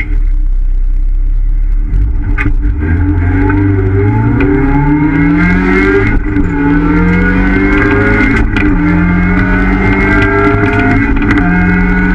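Ford Fiesta ST's engine heard from inside the cabin under hard acceleration. After a low, steady drone, the revs climb and drop back three times, about every two and a half seconds, as it shifts up through the gears.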